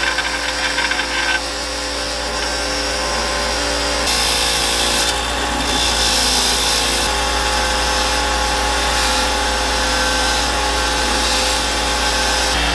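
Bench grinder running steadily while small steel hand-drill parts, first the knurled chuck and then a flat bracket, are pressed against its spinning wheel: a continuous scraping hiss over the motor's hum, louder from about four seconds in.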